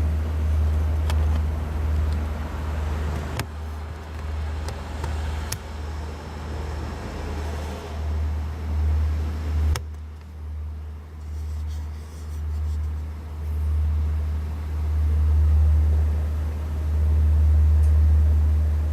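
Gusty low rumble of wind buffeting the microphone during a rainstorm, with rain hiss and a few sharp ticks of drops or knocks; the hiss drops away suddenly about ten seconds in while the rumble goes on.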